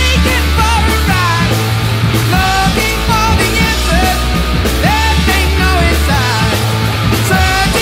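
Loud rock music with a singing voice over held bass notes.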